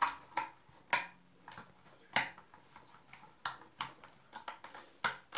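Screwdriver tightening a small screw into the plastic housing of a household sewing machine motor: a series of short, sharp clicks, about two a second, irregularly spaced.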